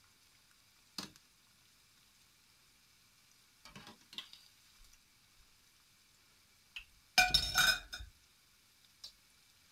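Metal wire skimmer knocking against a saucepan and a ceramic dish: a light tap about a second in, some light clinks around four seconds, then a louder clatter of just under a second as it is set down in the dish. Faint sizzling of churros deep-frying in oil runs underneath.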